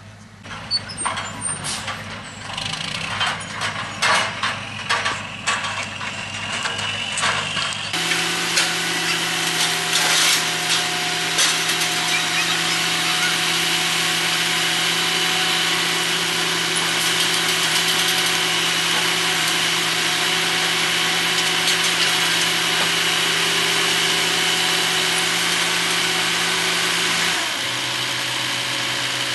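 A run of irregular knocks and clatter, then from about eight seconds in a motor running steadily with a high whine over a low hum. Its pitch steps down near the end.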